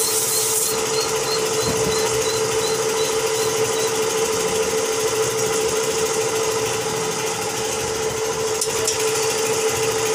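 Air compressor running steadily with a constant hum. For about the first second, compressed air from a blow gun hisses as it is blown through a clogged carburetor body, then stops.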